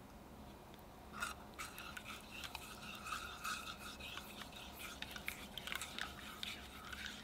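Silicone spatula stirring a thin custard base of egg yolk, sugar, cornstarch and hot milk in a saucepan, with quick repeated scraping strokes against the pan that start about a second in.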